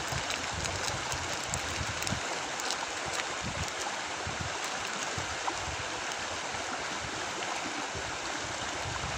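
Muddy mangrove creek water flowing and lapping steadily, with scattered faint ticks.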